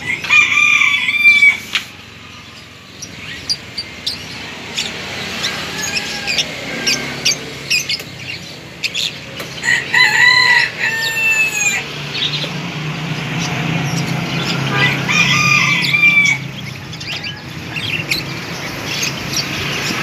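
A rooster crows three times: about a second in, about ten seconds in and about fifteen seconds in, each crow lasting around a second and a half. Small caged birds chirp throughout.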